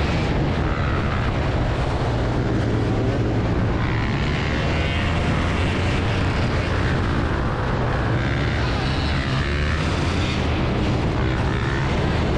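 Several motorbike engines running and revving together, a continuous loud rumble with pitch rising and falling.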